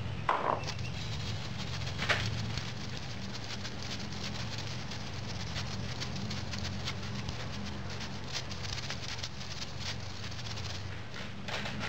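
Moulding sand sifted through a hand riddle onto a casting pattern in a moulding flask: a steady, dense patter of falling grains, over a low steady hum.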